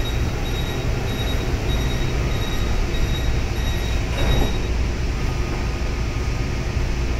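Metro train door-closing warning: a short high beep repeating about every half second, then the sliding doors shut about four seconds in, over the steady low hum of the standing train.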